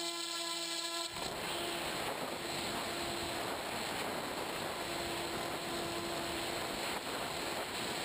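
Electric motor of an FPVRaptor RC plane running with a steady pitched hum as it is hand-launched; about a second in, loud wind rush over the onboard GoPro's microphone takes over as the plane flies, with the motor's hum faintly under it.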